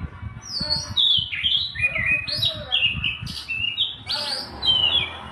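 Birds chirping in quick runs of short, high notes that step downward in pitch, with low irregular rumbling underneath.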